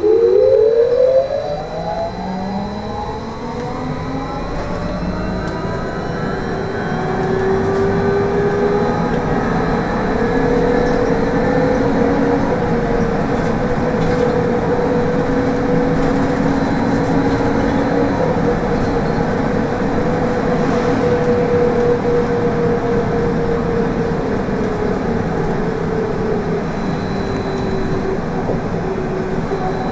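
Trolleybus electric traction drive whining as it pulls away, the whine rising in pitch over the first few seconds, then holding as a steady tone over road and tyre noise while it cruises.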